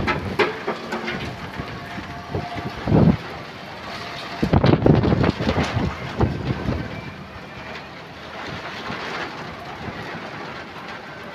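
Rain and gusty wind in a storm, with two louder bursts about three and five seconds in.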